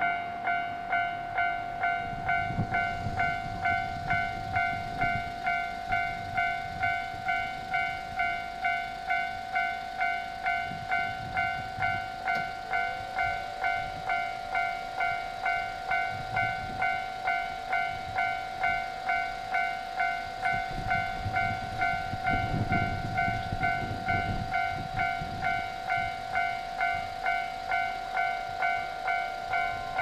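Japanese level-crossing warning bell ringing steadily, an even clang a little under two strokes a second, sounding while the crossing is active. A low rumble swells and fades about three-quarters of the way through.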